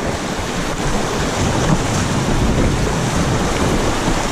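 River water rushing past a kayak running through fast water, with wind buffeting the microphone in a steady loud rumble.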